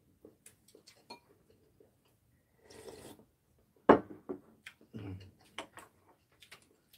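Chopsticks and a spoon clicking and clinking against ceramic bowls and plates while eating, in scattered small taps, with one sharp louder clack just before four seconds in.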